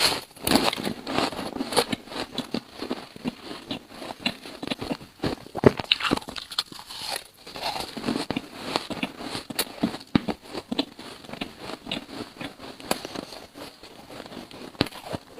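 Yellow buckwheat ice being bitten and chewed close to the microphone: a continuous irregular run of crisp crunches and crackles.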